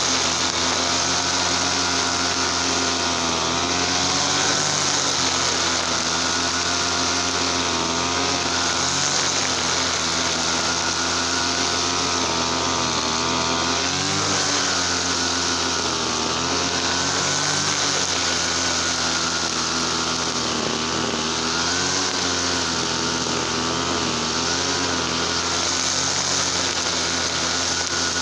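Easyman TL33 two-stroke petrol brush cutter engine running steadily, its pitch dipping and rising a little now and then.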